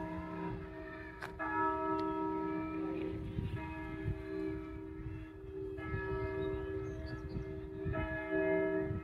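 Church bells ringing, with a fresh stroke every second or two that rings on under the next. The ringing marks the end of the total solar eclipse.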